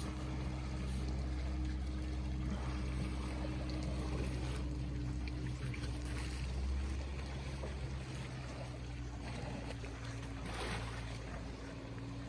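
A steady low hum under an even wash of outdoor wind and water noise, with a brief louder swish about midway and another near the end.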